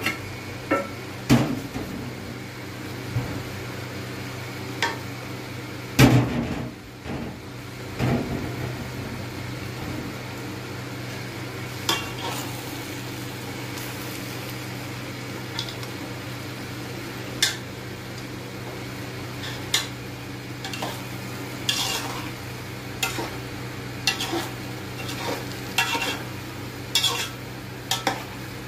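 Metal spoon scraping and clinking against the side of an aluminium cooking pot as cooked rice pulao is stirred, in scattered sharp clicks, over a steady low hum. A few loud metal clanks come in the first eight seconds, as the pot's lid is taken off.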